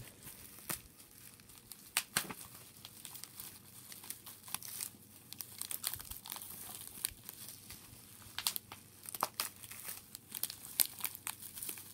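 Bubble wrap and plastic packaging being handled and unwrapped, crinkling and rustling with irregular sharp crackles.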